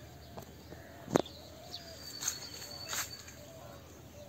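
Birds calling, short wavering notes repeating under a long thin high whistle. A sharp click about a second in, the loudest sound, and a couple of softer rustles follow.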